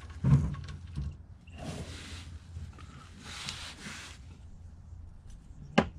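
Close-up breathing of a mechanic working under a car: two long, noisy exhales, then a single sharp click from his hand tool near the end.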